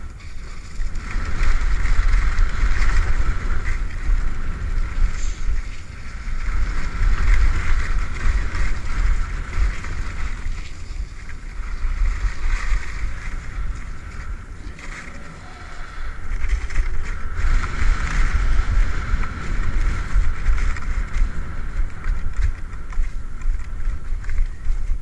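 Skis hissing and scraping over tracked-up, chopped snow during downhill turns, swelling and fading every few seconds, over a steady low rumble of wind buffeting the microphone.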